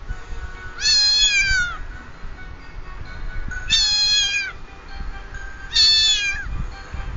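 A domestic cat meowing three times, each meow drawn out for about a second and falling in pitch at its end.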